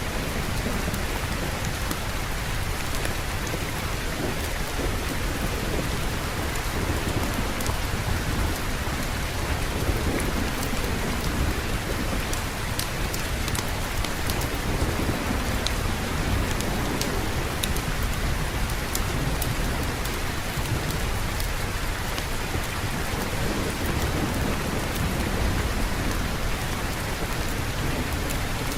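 Steady heavy rain with low thunder rolling and swelling underneath, and scattered sharp little ticks of drops on top.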